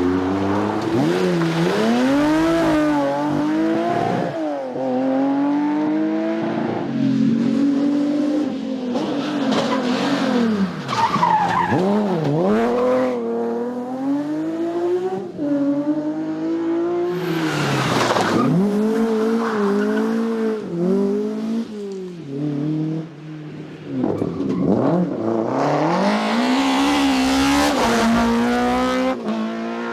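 Rally cars at full throttle on a stage, revs climbing and dropping again and again as they shift gears, brake and come past one after another.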